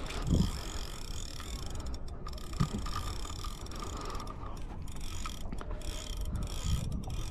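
Spinning reel working under load as a hooked catfish is played on a bent rod: a steady mechanical whirr with a ringing buzz, broken briefly a few times, over low thumps of wind and water.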